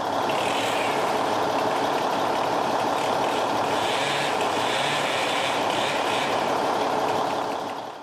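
Gasoline chainsaw running steadily while cutting limbs of a felled tree.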